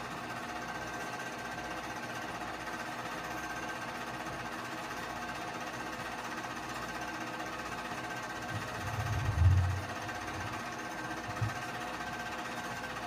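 Keystone K-502 8mm movie projector running: a steady motor hum with the rattling clatter of the film transport. About two-thirds of the way through comes a low rumbling thump, the loudest sound, then a smaller low bump a couple of seconds later.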